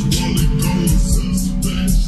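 Music played really loud through homemade midrange speaker boxes with horn tweeters: heavy bass under a steady beat, with a high ticking rhythm about four times a second.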